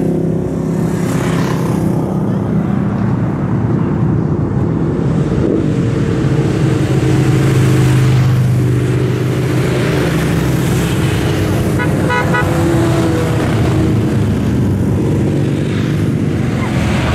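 Steady stream of motorcycles riding past, several engines running at once with overlapping engine notes rising and falling as they go by. A short rapid beeping, like a horn tooted several times quickly, comes about twelve seconds in.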